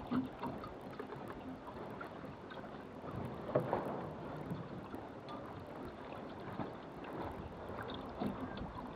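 Water rushing and splashing along a small sailboat's hull as it sails, with wind on the microphone. A few sharp knocks stand out, the loudest about three and a half seconds in.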